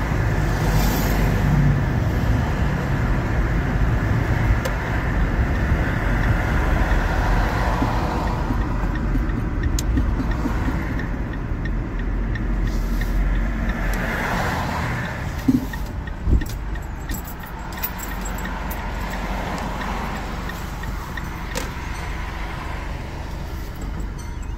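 Road noise and engine rumble inside a Ram ProMaster City van's cabin as it drives along a street, getting a little quieter about two-thirds through. Two short sharp knocks come just before that.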